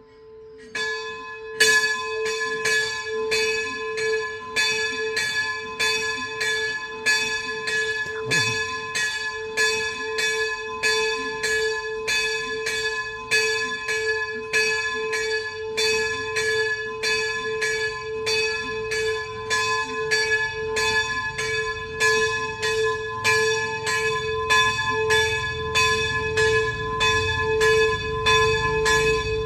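Church bell rung by hand with a pull rope, struck in a steady rhythm of about two strokes a second that begins about a second in, its low hum note ringing on continuously between strokes.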